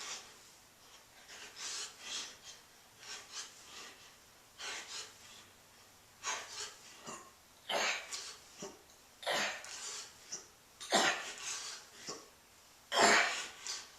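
A man breathing hard and rhythmically in time with the repetitions of a strength exercise, each breath a short rush of air. The breaths grow louder and heavier over the second half.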